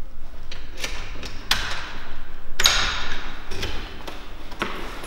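A series of irregular knocks and thumps, about six over five seconds, some with a short ringing tail, over a low steady hum.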